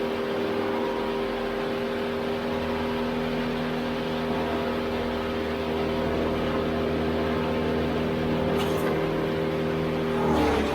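A machinery engine running at a steady speed, an even hum that holds one pitch, changing abruptly near the end.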